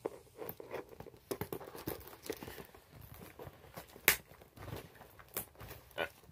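Package being unwrapped by hand: irregular rustling, crinkling and tearing of packing material, with one sharp snap about four seconds in.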